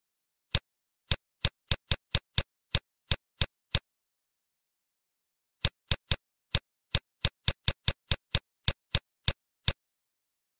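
Computer keyboard keystrokes: about a dozen sharp clicks at an uneven typing pace, then after a pause of about two seconds, a second run of about fifteen.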